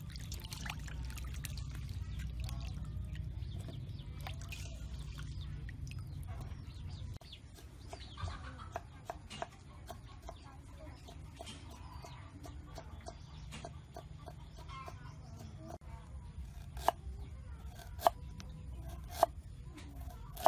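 Hands sloshing peeled ginger roots in a steel bowl of water. Then a kitchen knife slicing ginger on a wooden chopping board: many light taps, with three sharp knocks near the end.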